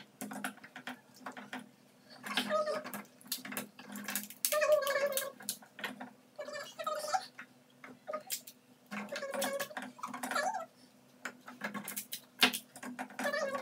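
Crisp, irregular cracks and crackles of hollow fried golgappa (pani puri) shells being poked open with the thumbs, with short high voices in between.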